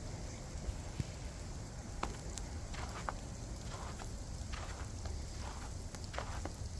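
Outdoor winter-storm ambience: a steady low rumble of wind on the microphone, with irregular short crackling ticks and crunches a few times a second.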